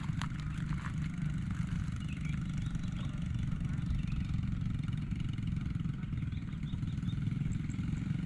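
A small engine running steadily at constant speed, a low, even drone.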